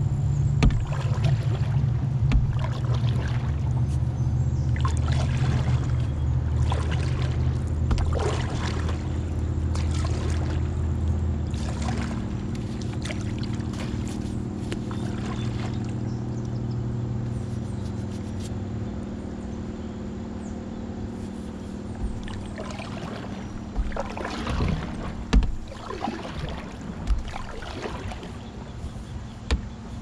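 Paddle strokes in river water: the blade dipping, splashing and dripping roughly every couple of seconds, with a few sharper splashes or knocks near the end. A low steady hum sits under the first half and fades away.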